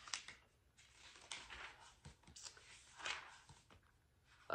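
Faint paper rustling as the pages of a large textbook are handled and turned: several short, soft rustles a second or so apart.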